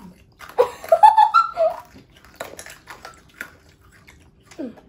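Wet mouth clicks and smacking of a child sucking on a Toxic Waste sour hard candy, with a short wordless voice sound about half a second in.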